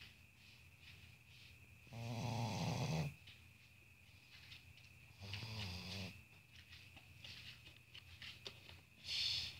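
A sleeping pug snoring, typical of its flat-faced breed: two long rasping snores, each about a second long, start about 2 and 5 seconds in. A short high-pitched sound comes near the end.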